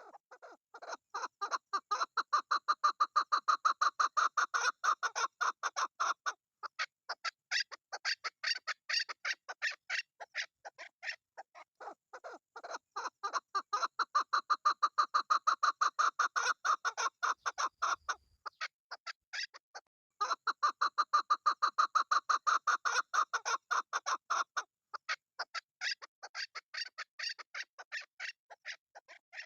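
Chukar partridge calling: long runs of rapid, repeated clucking notes, rising into three loud bouts with sparser, quieter clucks between them.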